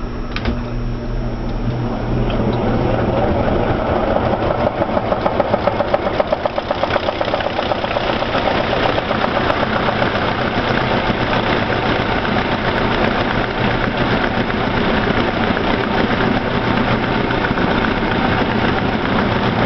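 Atlas washing machine starting its spin cycle: the motor and drum come up to speed about two seconds in with a rhythmic throbbing for a few seconds, then settle into a steady, loud whirring spin.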